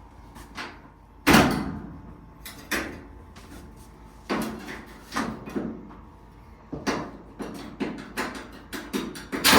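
Knocks and clicks of a putty knife prying at the steel top panel of a Whirlpool dryer to release its spring clips, with the loudest clunk about a second in and a quick run of smaller taps near the end.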